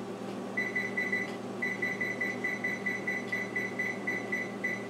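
Gas range's electronic control panel beeping as its buttons are pressed to set the oven timer: a quick run of short high beeps, about five a second, with a brief pause about a second in.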